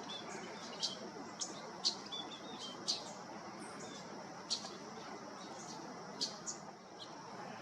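Songbird giving short, sharp chip calls, about eight of them at irregular intervals, over a faint steady high hiss of outdoor background.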